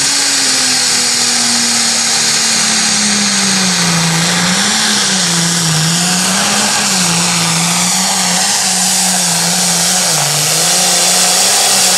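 Turbocharged diesel engine of an International Harvester Limited Pro Stock pulling tractor running flat out under load on the pull. Its note sags over the first few seconds as the sled drags it down, then rises and falls again and again.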